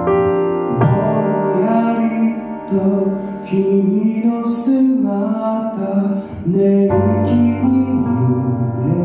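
Male vocalist singing while accompanying himself on a grand piano: held piano chords under a gliding sung melody, with a deep bass note entering about seven seconds in.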